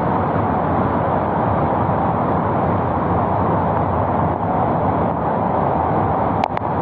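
Swollen floodwater of a river rushing past in a loud, steady noise, with a couple of brief clicks near the end.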